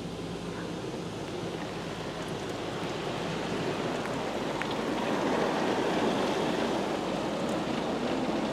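Pro Navigator touchless car wash spraying onto the car, heard from inside the cabin: a steady rushing hiss of spray on the body and glass. It grows louder toward the middle as the arm comes closer, then eases slightly.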